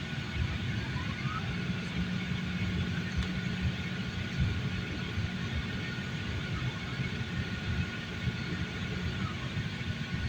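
Airliner engines heard inside the passenger cabin: a steady low rumble with an even hiss over it and a faint steady whine.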